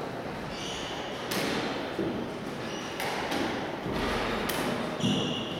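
A few dull thuds, about one every second and a half, over a steady low murmur of hall noise, with short high squeaks now and then.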